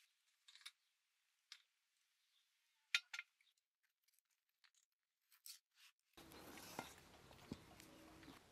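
A few faint, sparse clicks and light clinks of wooden kebab skewers and bread being set down on metal serving plates, the sharpest about three seconds in. From about six seconds in, a faint steady background hiss comes up.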